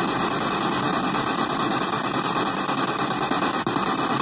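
Spirit box (ghost box) radio sweeping through stations, played through a small JBL Bluetooth speaker: a steady hiss of static, finely chopped as it scans.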